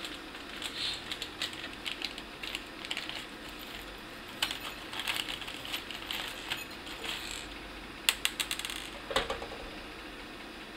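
Loose screws and small metal computer-case hardware being handled and rattled: irregular light clicks and clinks, with a quick run of clicks about eight seconds in.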